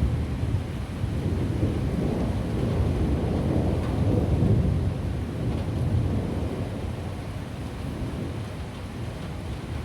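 Rolling thunder rumbling over steady rain. It swells to its loudest about four seconds in and then dies away.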